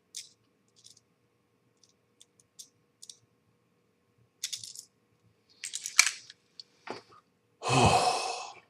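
Small screws and plastic model parts being handled: scattered light clicks and rattles, busier a little past the middle. Near the end comes one louder, rushing noise lasting about a second.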